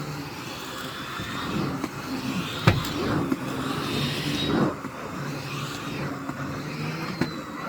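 Miele CX1 Blizzard bagless cylinder vacuum cleaner running with a steady hum and a faint high whine, its floor head worked over carpet. A sharp knock a little under three seconds in, with smaller bumps a couple of seconds later.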